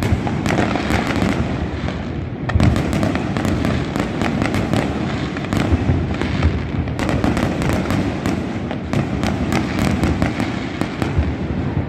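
Many fireworks bursting at once: a continuous stream of bangs and crackling pops over a steady low rumble.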